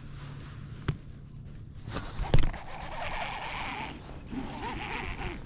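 A fishing reel being cranked, whirring steadily as it winds in line, after a sharp knock about two seconds in.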